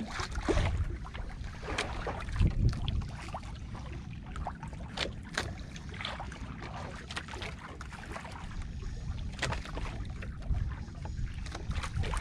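Wind buffeting the microphone aboard a small fishing boat at sea, with scattered short clicks and knocks from handling and water against the hull.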